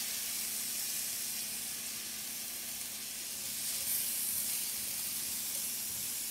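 Asparagus and halved cherry tomatoes sizzling in oil in a cast iron skillet, a steady, even hiss.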